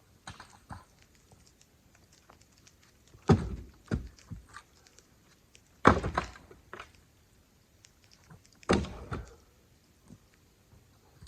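Fir firewood rounds thrown onto a pickup truck's load, landing with three loud thunks about two and a half seconds apart, with a few lighter knocks as pieces settle.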